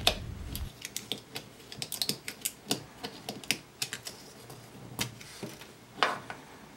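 A 3D-printed hard plastic coupler part for a scroll saw being handled and turned over in the fingers: irregular light clicks and taps.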